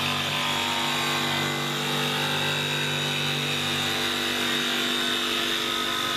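Cordless DeWalt jigsaw cutting through the van's sheet-metal roof panel, running steadily under load.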